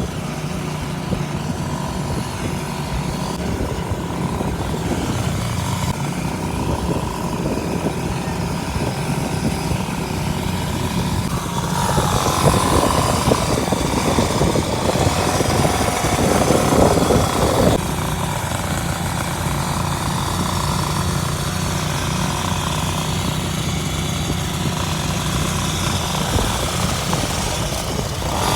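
Small two-stroke brush-cutter engine on a mini motocross bike running steadily, growing louder for about six seconds midway before settling back.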